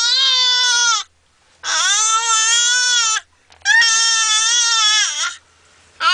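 Baby making long, drawn-out wailing cries, about four in a row, each held at a steady pitch for a second or more with short breaths between; the third one dips in pitch as it ends.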